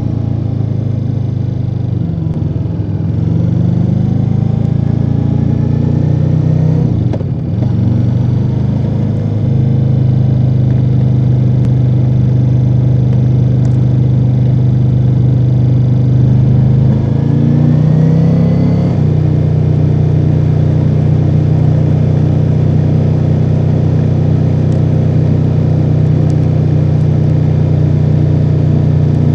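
2024 Ducati Multistrada V4 Rally's V4 Granturismo engine running on its stock exhaust while riding. The engine note drops and picks back up twice in the first nine seconds or so, climbs again a little past halfway, then holds a steady pitch.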